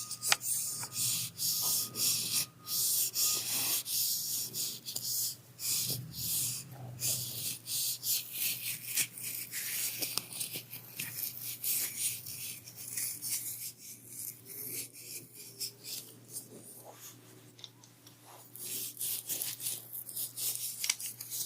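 Scratchy rubbing and brushing close to the microphone, in irregular strokes that die down for a few seconds past the middle and then pick up again, over a faint low hum.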